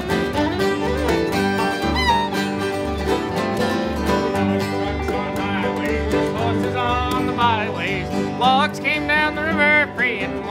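Acoustic string band playing an instrumental bluegrass-style break: a fiddle takes the lead over strummed acoustic guitars and a low bass line. In the second half the fiddle's notes slide and waver more.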